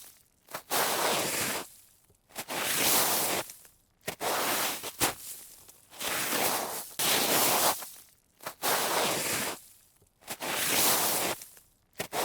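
A rough scraping, rustling noise in about seven separate bursts of roughly a second each, with silent gaps between them.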